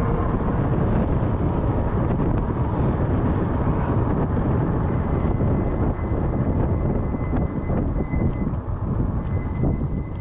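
Wind buffeting the microphone of a moving e-bike, a loud, dense rumble. A thin, steady high squeal comes in about halfway through.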